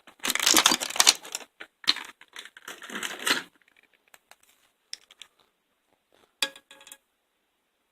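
Loose metal pliers clattering and clinking against each other in a tool cart drawer as they are handled, for about three seconds. A few light clicks follow.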